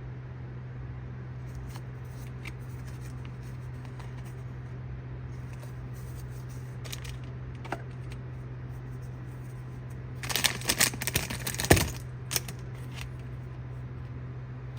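Unboxing noises from a toy's packaging: faint clicks and handling sounds, then a burst of crinkling and rustling for about two seconds near the end, with a sharp click just after. A steady low hum runs underneath.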